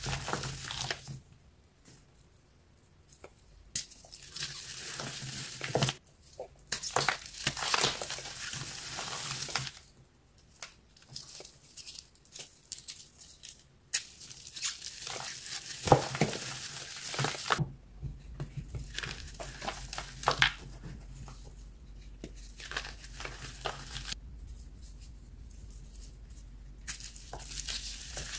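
Dry, powdery blocks being crushed and crumbled by hand: crunching and crackling as they break, with loose powder sifting and rustling through the fingers. It comes in spells broken by a few quieter pauses.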